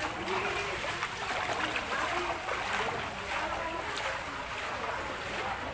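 Hubbub of a crowd, many voices talking and calling over one another, above a steady rushing noise.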